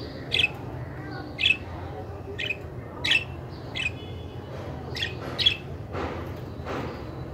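Budgerigars giving short, sharp chirps and squawks, about one a second, with two longer, scratchier calls near the end.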